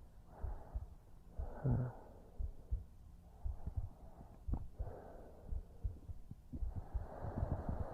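A heartbeat as a steady run of soft low thumps, with slow breaths in and out over it.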